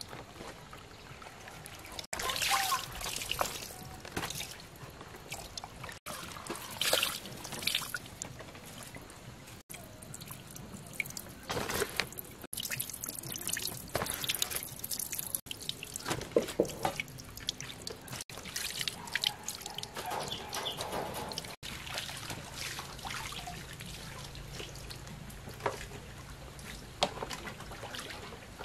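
Water dripping, trickling and splashing as large wet leaves are handled in a basin of water and lifted out, coming in irregular bursts.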